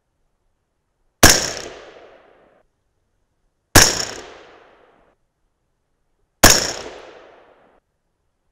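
Three shots from a .223 Remington AR-15-style rifle, about two and a half seconds apart, each a sharp crack followed by about a second of echo dying away.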